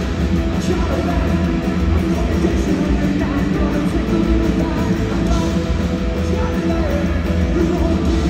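Punk rock band playing live and loud in an arena, with electric guitars over a steady low end.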